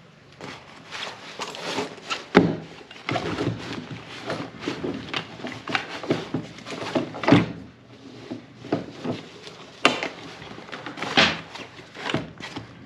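A folded compact camping chair being handled: a busy run of clicks, knocks and rustles, with sharper knocks about two and a half and seven and a half seconds in.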